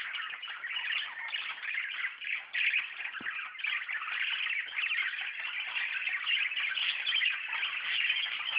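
A flock of budgerigars chattering and warbling without a break.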